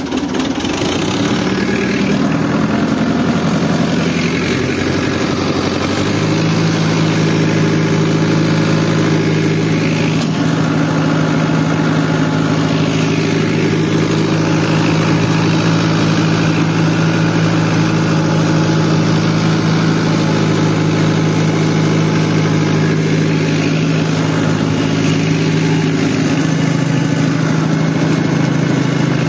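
Fiat 640 tractor's diesel engine running as the tractor is driven. Its note shifts over the first few seconds, then holds a steady speed from about six seconds in.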